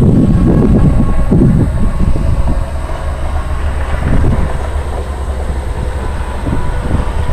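EMD GP38-2 diesel locomotive's 16-cylinder engine running, a steady low rumble heard from inside the cab. Irregular low buffeting sits over it for the first couple of seconds.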